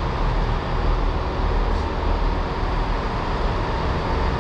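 Diesel trains idling in a station trainshed: a steady low rumble with a hiss over it.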